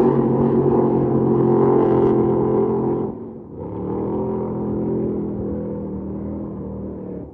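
Racing powerboat engines running at speed, a steady pitched drone. About three seconds in the sound drops away briefly, then comes back lower in pitch and slowly fades.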